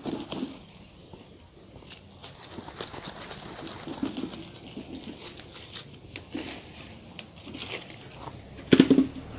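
A sharp knife cutting down through the tightly packed root ball of a bird's nest fern, with intermittent scraping and crackling as the blade works through roots and potting soil. A louder knock comes near the end as the divided root ball comes apart.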